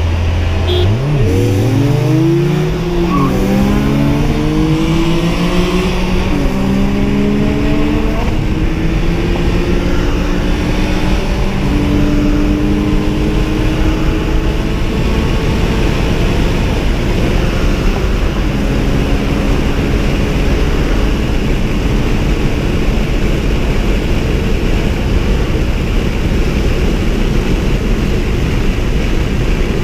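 Car engine accelerating hard, its pitch climbing and dropping back twice in the first several seconds as it shifts up. It then rises slowly and settles into a steady drone under loud rushing wind and road noise.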